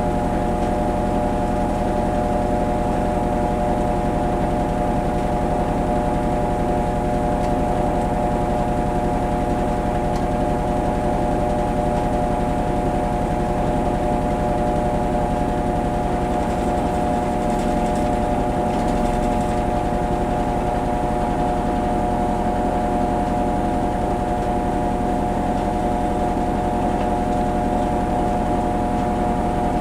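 Kenmore Series 500 high-efficiency washing machine in its spin cycle, the drum spinning at a steady speed: an even motor hum with several steady tones over a low rumble.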